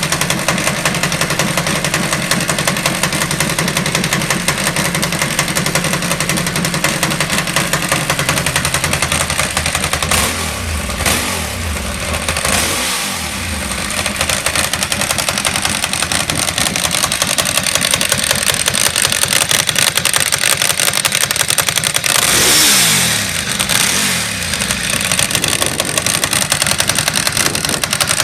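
Ducati Monster S4R Testastretta's 998 cc L-twin engine idling steadily, with two throttle blips: one about ten seconds in and one about twenty-two seconds in, each rising and then falling back to idle. The seller rates its mechanical noise as moderate.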